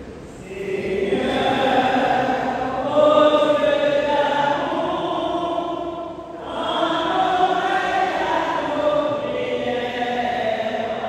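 Group of voices chanting a slow sung response in two long phrases, with a short break about six seconds in. It is the sung refrain answering an intention of the prayer of the faithful.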